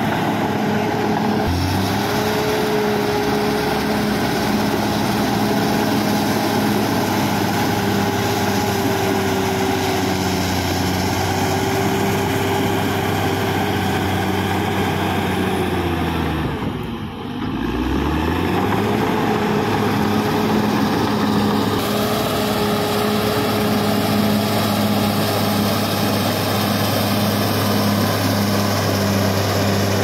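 Caterpillar D6R XL bulldozer's diesel engine running steadily under working load. A little past halfway its pitch drops sharply and climbs straight back up within a second or two.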